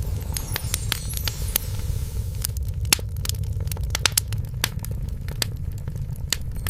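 Wood fire crackling in a fireplace: irregular sharp pops and snaps over a steady low rumble of the flames. Near the start a brief, high glittering shimmer of falling tones sounds over the fire.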